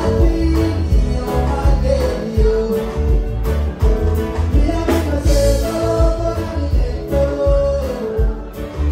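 Male singer performing live with a band: a sung melody through the PA over heavy bass and drums keeping a steady beat.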